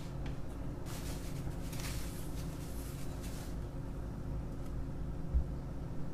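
Soft scraping and rubbing as a loaf of handmade soap is pushed and slid by hand along the plastic bed of a soap-loaf cutter, over a steady low room hum; one dull low thump near the end.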